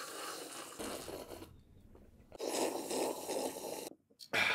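A man slurping tea from a cup: two long, noisy slurps of about a second and a half each, with a third starting near the end.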